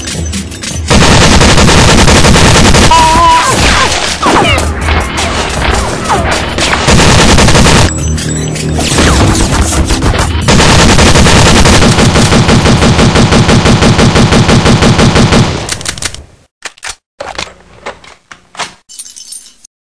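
Automatic gunfire sound effects: long, loud bursts of rapid shots that end in a steady run of about five shots a second, then stop abruptly about sixteen seconds in.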